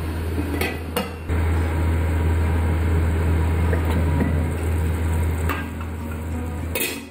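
Aluminium pot lid knocking as it is set down on the pan, and knocking again as it is lifted off, followed by a metal ladle clinking against the pot. A steady low hum runs underneath.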